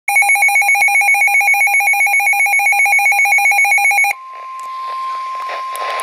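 Midland NOAA weather radio's alert alarm: a loud, rapidly warbling two-tone siren that cuts off about four seconds in. The steady single-pitched tone of the National Weather Service's warning alarm then follows over faint static, signalling an incoming severe thunderstorm warning.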